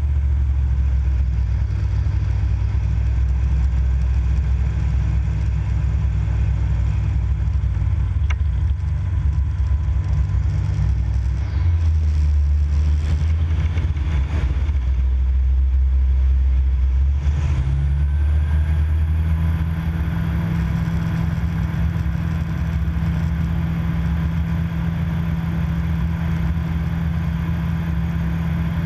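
Cockpit noise of a Viper SD4 light sport aircraft: the single propeller engine's steady drone mixed with airflow, heard from inside the cockpit through a spin and its recovery. The engine note drops about a third of the way in, with gusty rushes of air through the middle. It rises again a little after halfway and settles into a higher steady drone once the aircraft is level.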